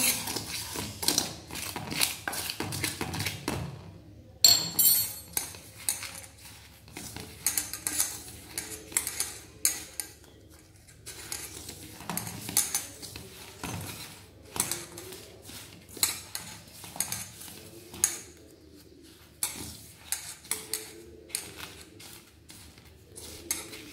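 A hand mixing coarsely ground mung dal and powdered sugar in a stainless steel bowl: irregular clinks, taps and scrapes against the steel, with one sharper clink about four seconds in.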